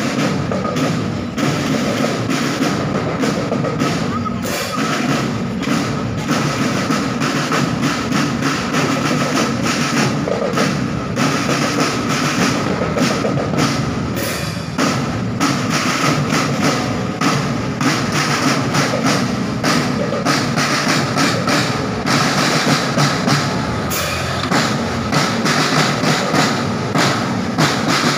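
Marching drum band playing: snare drums and bass drums beating a steady march rhythm of dense, continuous strikes.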